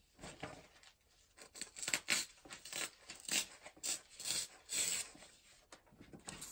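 Sheets of paper being handled: crinkling and rustling in a run of irregular bursts, busiest through the middle.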